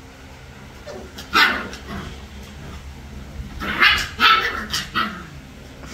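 Three-week-old puppies barking and yipping in play: one high yap about a second and a half in, then a quick run of several more yaps a little later.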